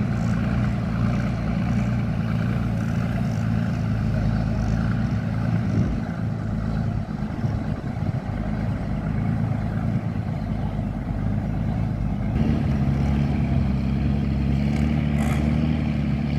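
KiHa 183 diesel railcar engine running steadily, its note shifting to a different pitch about twelve seconds in.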